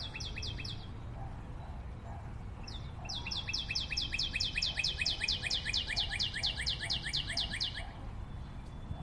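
A bird singing a rapid series of short descending notes, about five a second: a brief burst at the start, then a longer run of several seconds from about three seconds in, over a low steady rumble.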